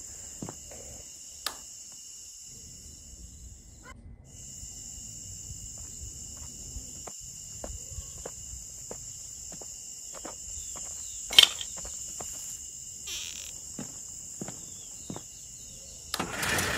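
Steady high-pitched cricket chirring, with scattered small clicks and taps as fingers handle the wiring of a small model train; one sharp click comes about eleven seconds in. Near the end a buzz starts as the train's small electric motor switches on.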